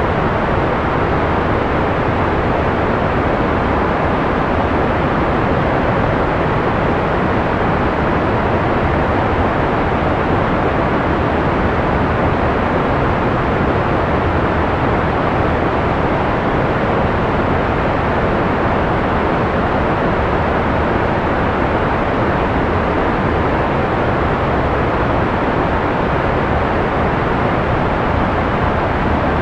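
Continuous analog white noise played as a sleep aid: a steady, unchanging muffled hiss with its weight in the lows and mids and little treble.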